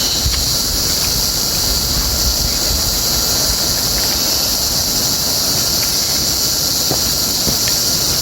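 Cicadas buzzing in a steady, loud, high-pitched chorus over a low rumbling noise.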